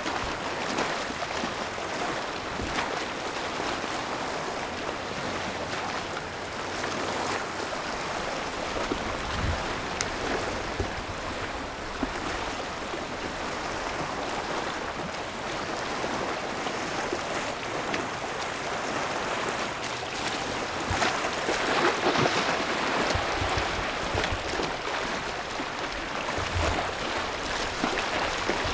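A steady rushing noise with no clear tones, swelling a little about three-quarters of the way through.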